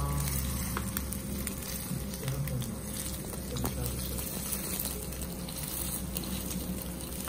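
Pork rib pieces sizzling in oil on an electric grill pan. A few sharp clicks come from metal tongs and kitchen scissors against the pan as the meat is cut.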